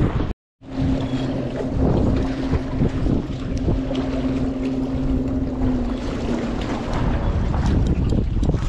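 Sea wind buffeting the microphone, with knocks and rustles from handling the rod and camera, and a steady low hum for several seconds after a short cut.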